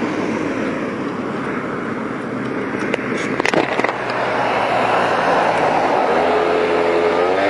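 A moped ridden in traffic, with wind rushing over the microphone and the engine running beneath it; about six seconds in the engine note rises as the bike speeds up, then holds steady.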